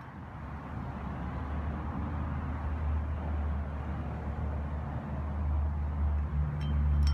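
Low outdoor rumble that grows steadily louder, with a short low hum and a few faint clicks near the end.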